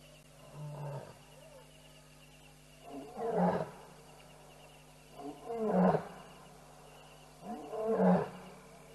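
Lion roaring in a bout: a softer first call about a second in, then three loud roars roughly every two and a half seconds.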